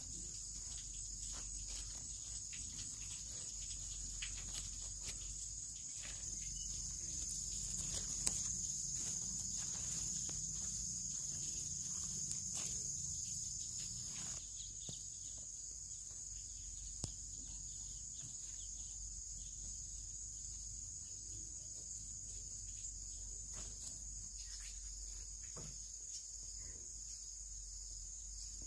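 A steady, high-pitched chorus of insects shrilling without a break. Over it come soft, scattered scratching and crumbling sounds of bare hands working loose soil around transplanted leafy seedlings.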